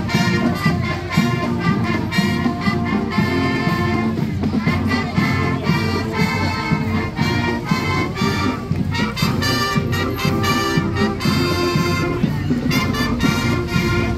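Marching band playing a tune, brass carrying the melody.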